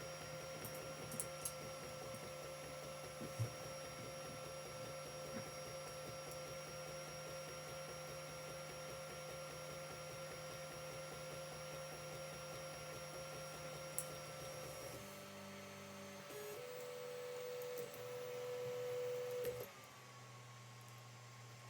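Creality CR-10 3D printer running, its stepper motors giving a steady whine with fast fine ticking over a steady hum. About two-thirds through the motor sound changes pitch; a whine then swells louder and stops shortly before the end, leaving only the hum.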